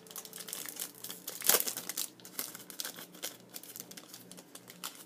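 A small sample packet being crinkled and torn open by hand: a run of quick crackles, the loudest about one and a half seconds in.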